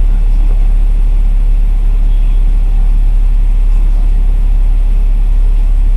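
A KMB bus's diesel engine idling, a loud, steady low rumble heard inside the cabin while the bus stands still.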